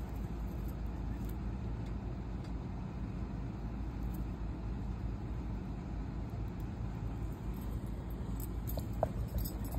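Steady low background rumble with no distinct events, then a few faint clicks and handling noises about nine seconds in as the phone is moved.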